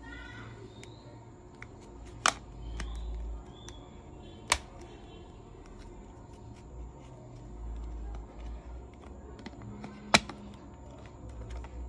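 Three sharp taps or clicks as a smartphone is handled and turned in the hands, the loudest about ten seconds in, over a low steady hum.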